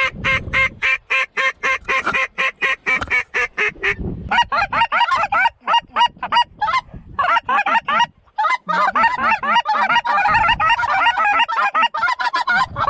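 Hand-blown waterfowl calls worked at incoming ducks: a fast, even run of about sixteen short notes, then from about four seconds in a dense, irregular string of quacks and clucks.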